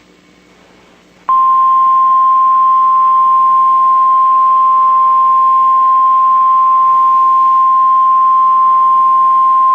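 NOAA Weather Radio warning alarm tone: a single loud, steady 1050 Hz beep that starts about a second in and holds unbroken. It is the attention signal that comes just before a spoken tornado warning message, here a test.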